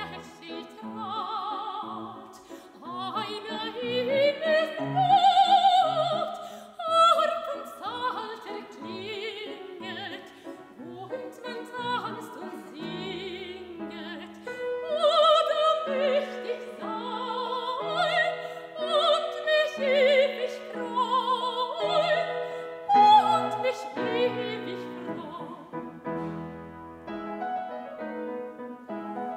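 Operatic soprano singing a classical song with vibrato, accompanied by grand piano.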